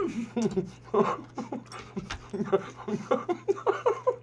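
A man's voice in short, broken sounds one after another, without clear words.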